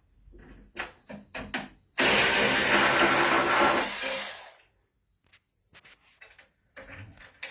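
A 12V cordless electric ratchet wrench's motor runs steadily for about two and a half seconds, turning a bolt out of a table leg. A few light clicks of the wrench being handled on the fitting come before it, and faint clicks follow.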